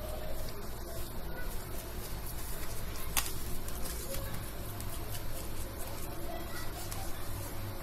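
A hand pressing and smoothing damp semolina dough into a metal baking tin: soft rustling and patting, with one sharp click about three seconds in, over a steady low hum.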